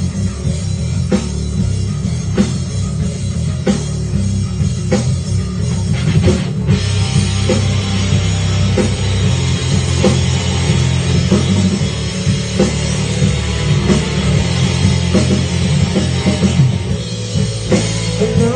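Instrumental opening of a rock song: a drum kit keeps a steady beat over a heavy low end, with cymbals washing in about six seconds in.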